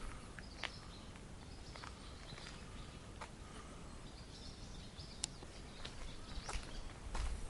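Faint outdoor ambience with a few light scattered clicks and brief, faint bird chirps.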